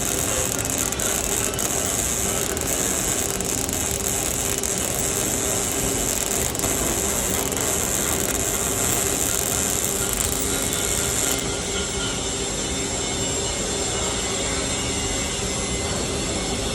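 MIG welding arc crackling steadily as a bead is run on a vertical (3G) steel plate, with a harsh high hiss over it that drops away about eleven seconds in.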